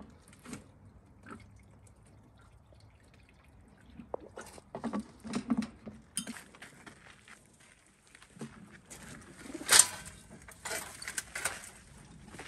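Water poured and dribbling from a plastic watering can into the drinkers of racing-pigeon transport crates, with pigeons cooing and shuffling inside. Scattered knocks from the crates, the sharpest about ten seconds in.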